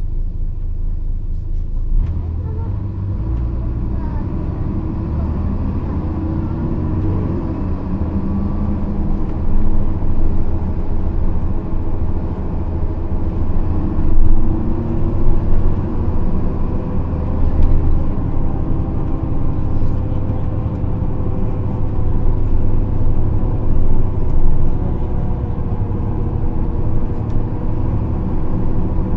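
Nissan Diesel RM mid-size bus's FE6E straight-six diesel and JATCO three-speed automatic running under way, heard from inside the cabin; the engine note builds about two seconds in, with louder swells later. An unusually loud, harsh running sound, the abnormal noise this particular bus is known for.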